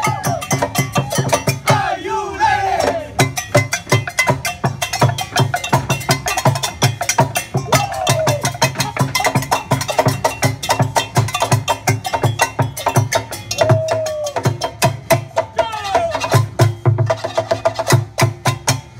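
Kitchen-utensil percussion ensemble playing a fast, steady rhythm: metal kitchenware clattering and clicking over a regular deep beat from a plastic barrel used as a drum.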